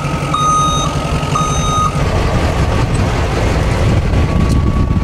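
Truck backup alarm on a Chevy Kodiak 4500 beeping twice, about once a second, then stopping about two seconds in as the truck stops reversing. Under it the truck's 6.6 Duramax diesel runs with a steady low rumble.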